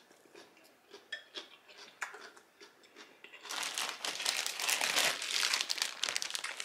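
A plastic salad-kit bag crinkling loudly as it is picked up and handled, starting about halfway through, after a few faint chewing clicks.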